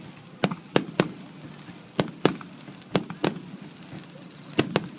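Fireworks bursting overhead: eight sharp bangs in four pairs, each pair about a third of a second apart.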